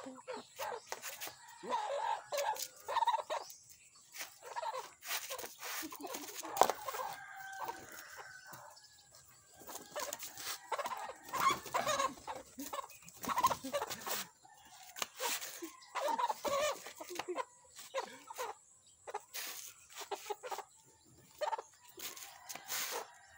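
Lundicap chickens clucking and calling in short, irregular bursts, with some crowing, while a young rooster is handled. Scattered brief rustles are heard among the calls.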